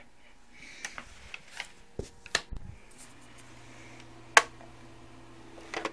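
A scatter of sharp clicks and knocks, the loudest a little past four seconds in, with a faint steady low hum from about three seconds in.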